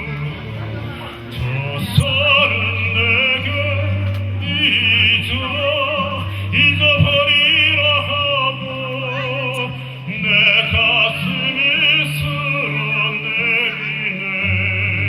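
Operatic-style music: a high melody with wide vibrato over sustained low bass notes.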